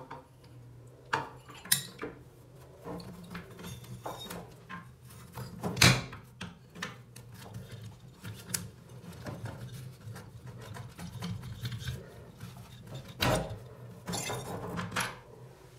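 Braided stainless-steel faucet supply hoses and their metal nuts scraping and clinking against the mounting hole of a stone vanity top as they are pulled up through it. Scattered small clicks and rubs, with sharper knocks about six seconds in and again about thirteen seconds in.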